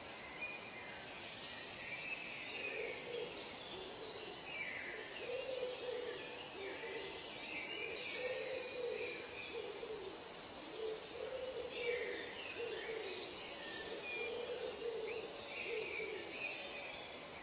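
Wildlife ambience: low hooting calls repeated about once a second, over higher bird chirps and whistles and a few brief high buzzes.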